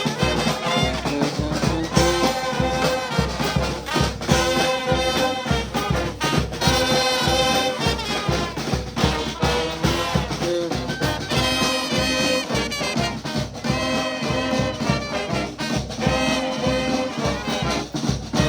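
Brass band playing live over a steady beat.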